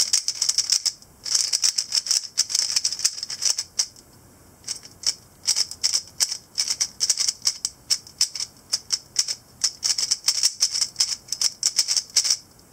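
Stickerless X-Man Tornado 3x3 speed cube being turned fast in the hands: quick runs of plastic clicks and clacks as the layers turn, with short pauses about a second in and around four seconds in. The cube is set up super loose.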